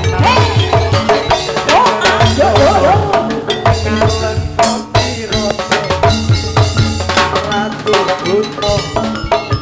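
Live Javanese jathilan gamelan music played loud through a sound system: a fast, steady drum beat with clattering percussion, and a wavering melodic line over it in the first few seconds.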